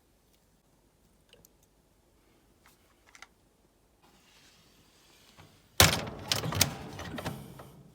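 Faint ticks, then a sudden loud knock about six seconds in followed by a second and a half of clattering and knocks: firewood and the wood burner's metal door being handled.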